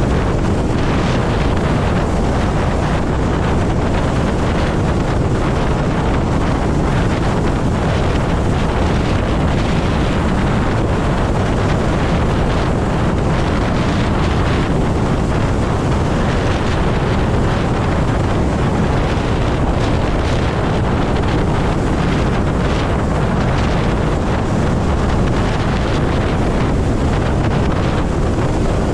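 Steady wind rush buffeting the microphone of a Zero electric motorcycle rider at highway speed, about 70 on the speedometer. There is no engine note, since the bike is electric, just an even roar of air that does not change.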